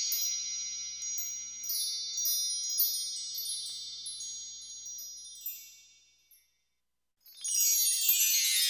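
Chimes on the closing soundtrack: many high ringing tones with light tinkling strikes that slowly fade away, a second or so of silence about six seconds in, then a fresh wash of chimes swelling in at about seven and a half seconds.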